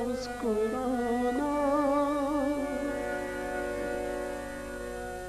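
Male ghazal singer drawing out a sung line in a long, wavering held note over instrumental accompaniment; about halfway the voice drops away and the accompaniment holds steady notes.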